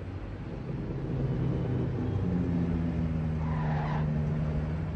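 A car engine running, a steady low hum over a rumble, growing louder about two seconds in.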